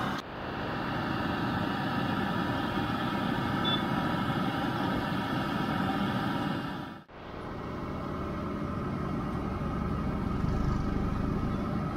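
Steady street-market din with vehicle engines running, and hot oil bubbling in a large deep-frying wok during the first seven seconds. The sound breaks off sharply about seven seconds in, and a low rumble builds near the end.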